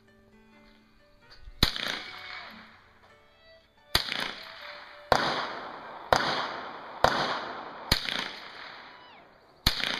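Rifle fired seven times, aimed single shots mostly about a second apart, each with a short ringing echo. Faint background music is heard before the first shot.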